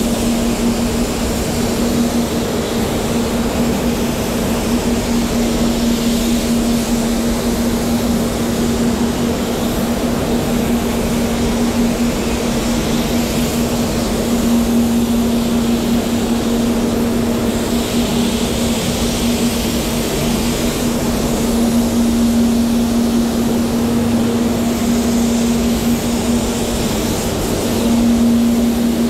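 SATAjet X5500 gravity-feed spray gun hissing with compressed air as it sprays 2K clear coat in passes. Under it is a steady droning hum, and the hiss swells and eases as the gun is triggered.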